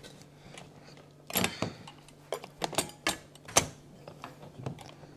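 Scattered clicks and knocks of kitchen things being handled, as a mixing bowl is fetched and set out, with the sharpest knocks coming from about a second and a half in. A faint steady low hum runs underneath.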